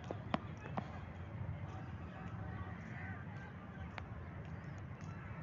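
Open-air park ambience: a steady low rumble with faint distant voices, broken by a few short sharp clicks, the loudest about a third of a second in.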